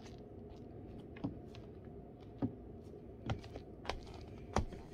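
Footsteps in high-heeled Calvin Klein braided-strap sandals: about five sharp, irregularly spaced heel taps as she walks, over a low steady background hum.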